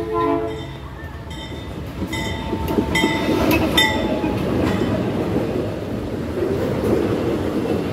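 Diesel freight locomotive passing close, its engine rumble mixed with the clatter of wheels over the rails. Brief high-pitched metallic squeals come and go in the middle, then container wagons roll by.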